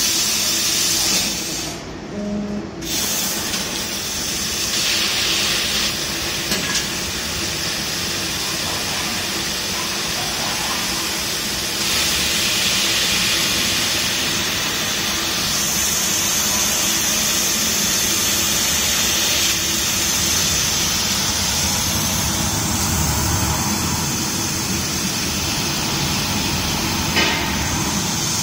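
Steady hiss of the gas jet from a mixed CO2 laser cutter's head as it cuts stainless steel sheet, over the machine's running noise. The hiss drops away briefly about two seconds in and shifts in strength several times as cuts start and stop.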